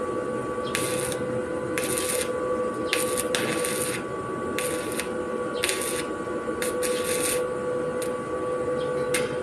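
Electric arc welding on a metal railing: the arc crackles and sizzles in short spells about once a second, over a steady electrical whine from the inverter welding machine.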